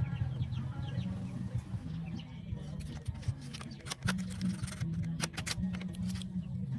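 Music with a heavy, stepping bass line played through a small 4-inch 40 W subwoofer under test. Birds chirp in the first second or so, and a run of sharp clicks comes through in the middle.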